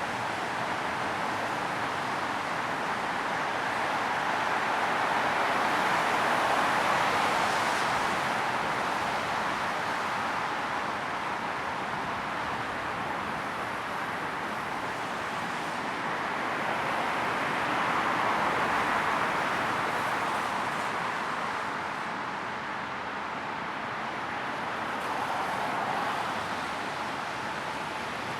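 Busy highway traffic on a rain-wet road: a steady hiss of tyres and engines that swells three times as vehicles pass close by.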